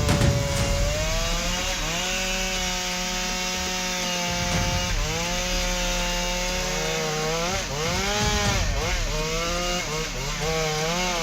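Chainsaw running at high revs while cutting a large tree trunk. Its engine pitch sags and recovers several times as the chain loads up in the wood.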